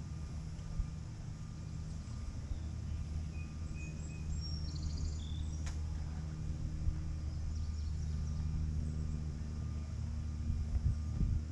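Outdoor ambience: a steady low rumble with a few short bird chirps about halfway through, and a single sharp click near the middle.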